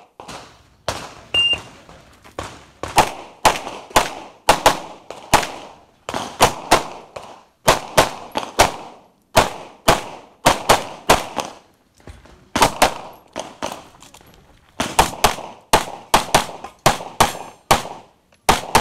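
Open-division 9mm Major race pistol firing a stage string: sharp shots, mostly in quick pairs, in bursts separated by short pauses.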